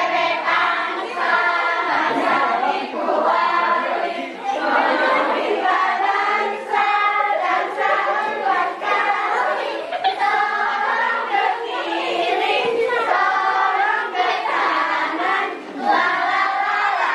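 A group of women and children singing a song together with no instruments, the song sung while gifts are passed from hand to hand in a pass-the-gift game.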